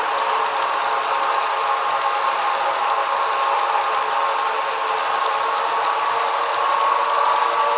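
Broadway Limited Paragon 3 model PRR P5a electric locomotives running with a freight train: a steady mechanical hum and whir from the models' drives and onboard locomotive sound.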